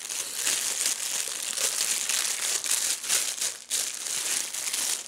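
Packing material crinkling and rustling as the contents of a box are unwrapped by hand: a continuous run of crackles with a brief pause about three and a half seconds in.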